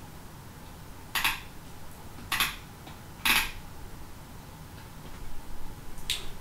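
A computer mouse's scroll wheel clicking in three short bursts about a second apart, with a fainter one near the end, over a faint steady background hiss.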